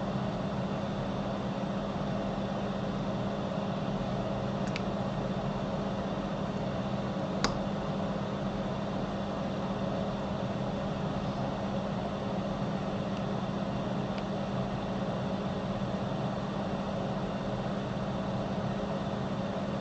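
Steady whir of a small electric fan blower, with faint sharp ticks about five and seven and a half seconds in.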